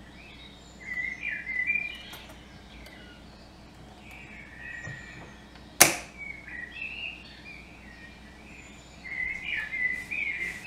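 Small birds chirping in short, twittering phrases. About six seconds in comes one sharp click as the wire bail clamp of a glass swing-top jar snaps shut.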